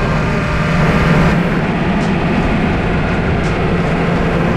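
Humvee military ambulance's diesel engine, drivetrain and tyres heard from inside the cab while driving at about 30 mph: a loud, steady drone with a low hum. It is loud enough that you would guess 90 miles an hour by the sound, like a paper mill.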